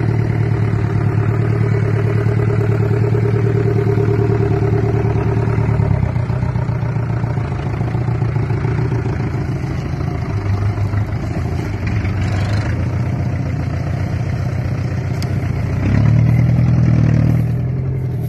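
Aro 243's diesel engine running under load as the 4x4 drags a bundle of logs through mud, the note shifting lower about six seconds in. Near the end it revs up and is loudest for a second or so.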